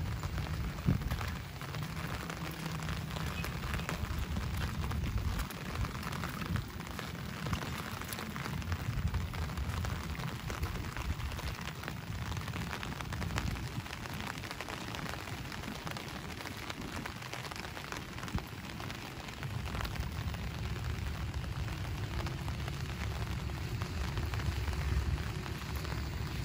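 Steady rain falling, with dense small drop impacts over a low, wavering rumble. One sharper knock stands out about a second in.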